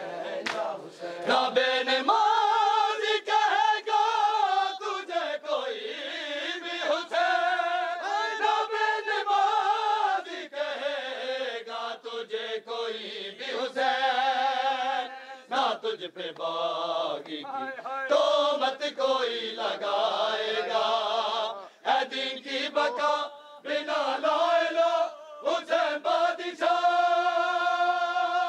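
A group of men chanting a noha, the Shia lament for Imam Hussain, unaccompanied, in long wavering held notes with brief breaths between lines. Scattered sharp slaps, the hands of matam beating on chests, cut through the chanting.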